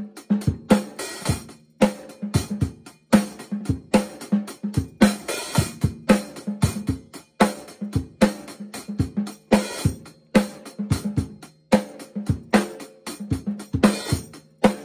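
A drum kit played alone, with no backing music, in a steady rock groove of kick, snare and hi-hat. The pattern repeats about every second and a quarter, with a few cymbal crashes ringing out along the way.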